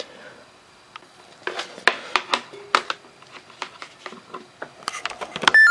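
Irregular clicks and knocks as a laptop is handled, ending in a short, loud electronic beep near the end.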